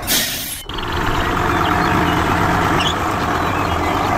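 A short hiss, like a truck's air brakes releasing, in the first half-second, then a truck engine running steadily at a low idle-like drone.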